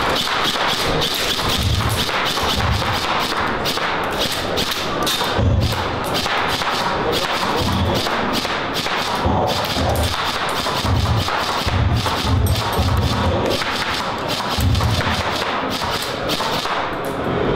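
G&G airsoft guns firing in rapid, continuous strings of sharp clicks, with dull thuds at irregular intervals of a second or two, over steady hall noise.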